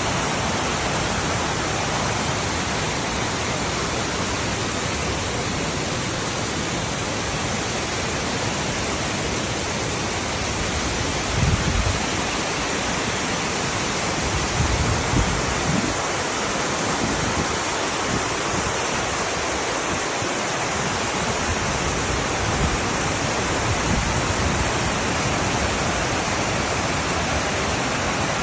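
Waterfall rushing in a steady roar of water, with a few brief low thuds about halfway through, like wind buffeting the microphone.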